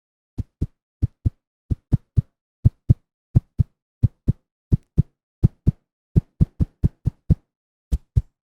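Human heartbeat sound effect: paired low thumps (lub-dub) starting about half a second in, at about one and a half beats a second, briefly quickening about two-thirds of the way through.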